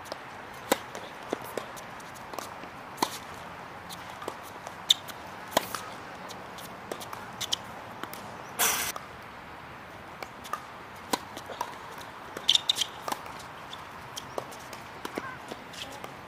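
Sharp, irregular knocks of tennis play: racket strikes and ball bounces, some close together, with a short rasping noise about nine seconds in.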